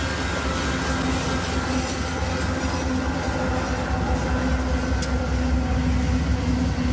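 Coal train rolling past: a steady rumble of steel wheels on the rails, with a sharp click about five seconds in.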